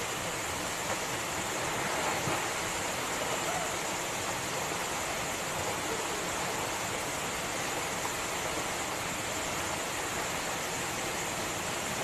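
Steady rush of a waterfall pouring into a rock pool, with splashing as people wade into the water.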